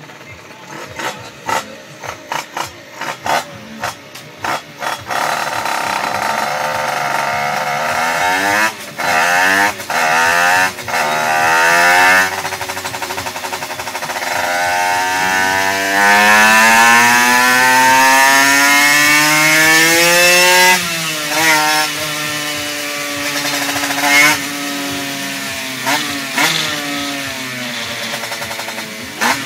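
Aprilia RX 75cc two-stroke single-cylinder moped engine, its rear wheel driving a dyno roller. It gives a string of short throttle blips, then revs climbing with several brief dropouts. Next comes one long pull, rising steadily in pitch for about five seconds, before the throttle is shut. It then runs lower with a few more quick blips; the owner says it runs badly.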